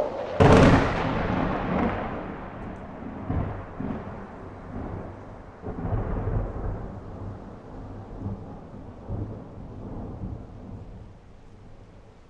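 Thunder: a sudden loud crack about half a second in, then a long low rumble that swells again a few times and slowly fades away.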